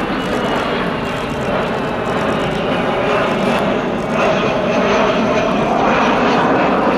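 Jet engine noise from a Boeing KC-135R Stratotanker's four CFM F108 turbofans as the tanker flies past and banks away, a steady rush that grows a little louder in the second half.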